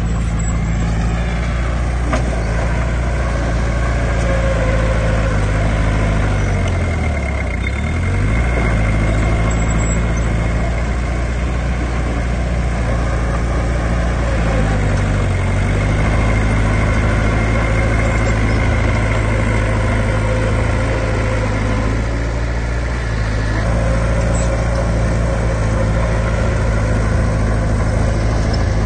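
Heavy diesel engine of earthmoving machinery running steadily, its pitch dipping and recovering twice, about seven seconds in and again about fifteen seconds in.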